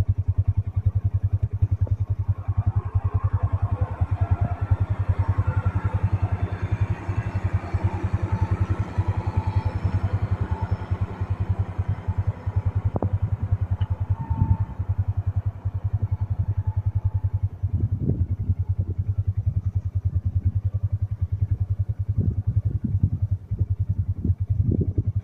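Tractor engine running steadily at a fast, even firing rhythm, with a few clunks and rattles over it in the second half.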